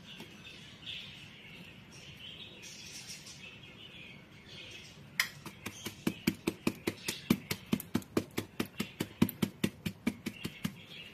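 Plastic flour sieve being tapped by hand to shake flour through: a quick, even run of light knocks, about five a second, starting about halfway through. Before the tapping there is only a faint high-pitched sound.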